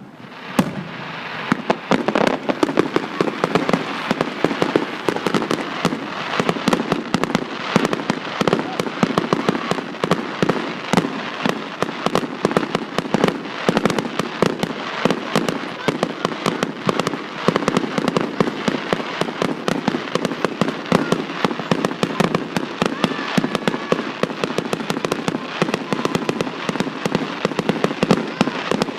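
Fireworks crackling: a dense, unbroken stream of rapid pops and crackles that starts abruptly and keeps going without a break.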